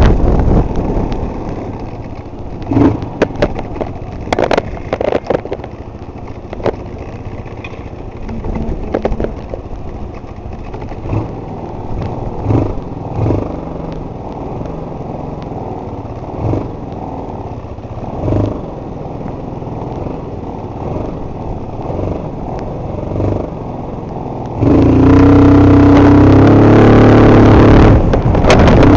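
Linhai 257cc single-cylinder scooter engine running at low speed, with scattered knocks and clatter. About 25 s in it gets suddenly much louder and holds a steady engine note.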